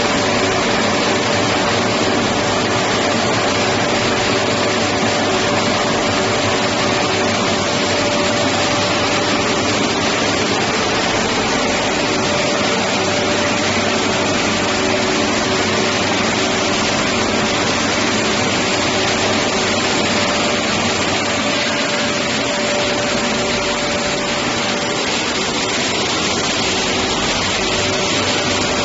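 Q698 roller-conveyor shot blasting machine running: its motor-driven blast turbines throw steel shot onto steel pipes, making a loud, steady noise with a steady hum over it.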